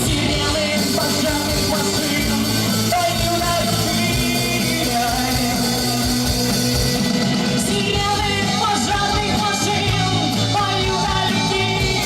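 Rock band playing live with a singer.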